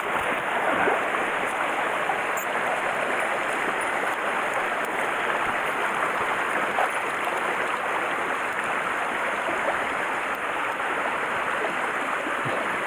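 Mountain stream rushing over rocks: a steady, even sound of running water.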